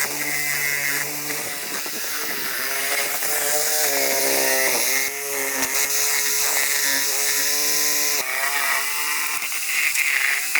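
Chainsaw running, its engine speed dipping and picking back up several times as it works.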